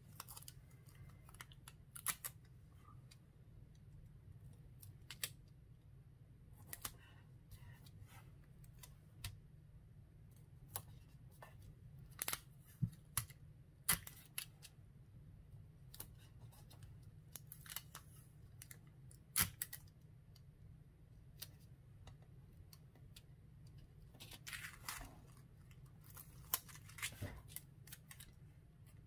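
Quiet, scattered clicks, taps and brief rustles of hands handling clear tape, a tape dispenser and a clear plastic photo pocket on a cutting mat, with a few sharper clicks. A low steady hum sits underneath.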